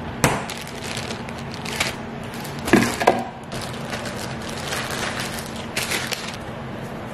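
Kitchen handling sounds: sharp knocks about a quarter second in and near three seconds in, then the crinkling of a plastic zip-top bag, over a faint steady hum.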